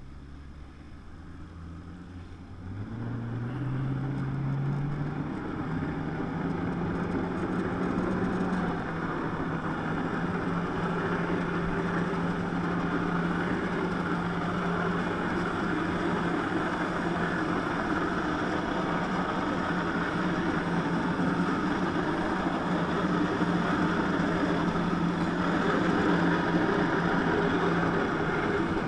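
Jet ski engine revving up in steps over the first few seconds, then running steadily at high throttle while it drives water up the hose to lift a flyboard rider.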